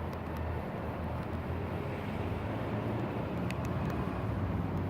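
Steady low outdoor background rumble with a low hum underneath and a few faint ticks about three and a half seconds in.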